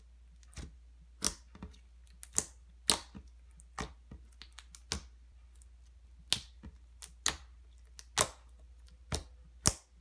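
Glossy glitter slime being squeezed and poked by hand, giving sharp clicks and pops at an irregular pace, a few louder than the rest.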